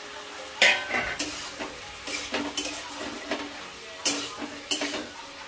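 Metal spatula stirring in a steel kadhai of frying drumstick pods and tomatoes, clinking sharply against the pan about seven times, loudest about half a second in, over a light sizzle.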